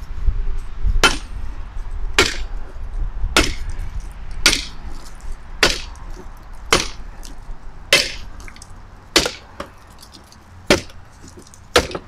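Steel hurlbat blade chopping repeatedly into a gel dummy head, about ten sharp strikes a second or so apart, the last few a little more widely spaced.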